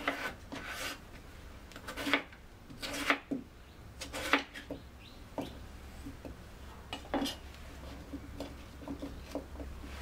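Chef's knife slicing through a raw potato and knocking on a plastic cutting board, one stroke every second or so. The strongest cuts come around two, three and four seconds in, and lighter taps follow after that.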